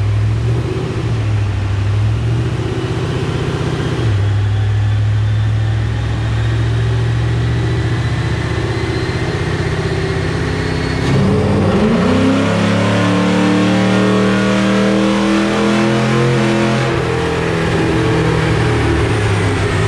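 Ford 4.6L 3-valve V8 of a Mustang GT with long-tube headers and Borla axle-back exhaust, running on a chassis dyno. It cruises steadily under a thin rising whine for about eleven seconds, then goes to full throttle with the revs climbing hard for about six seconds, and drops back as the throttle is released.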